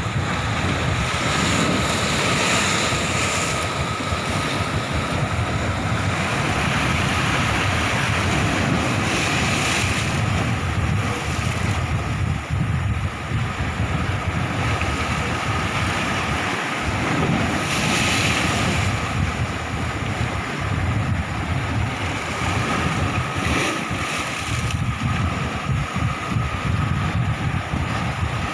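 Sea waves washing ashore with wind buffeting the microphone, swelling and easing every several seconds.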